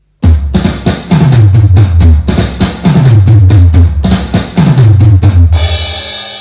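Intro music: a loud drum-kit beat with a deep bass note that slides down, repeating four times. It ends in a cymbal crash that rings out and fades.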